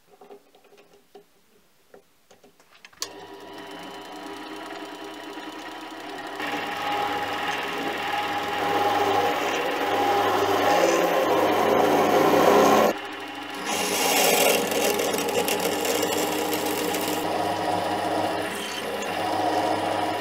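Mini lathe running with its motor hum and a steady gear whine, while a center drill and then a twist drill in the tailstock bore into a spinning 42CrMo4 steel part, adding a louder scraping cutting noise from about six seconds in. The cutting noise drops out briefly about 13 seconds in, then resumes. A few faint clicks come before the lathe starts about three seconds in.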